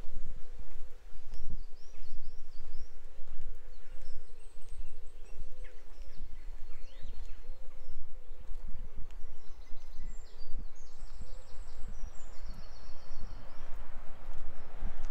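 Small birds chirping and trilling outdoors, with more calls in the second half. Underneath runs a steady low rumble with irregular low thumps, which is louder than the birds.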